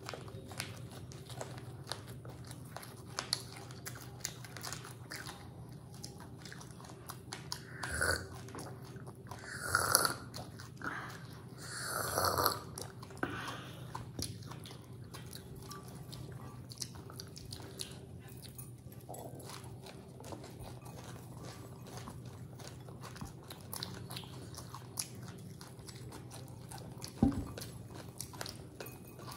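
Chewing mouthfuls of puffed rice mixed with grated coconut: a steady stream of small crisp crunches, with three louder bursts of crunching about eight, ten and twelve seconds in.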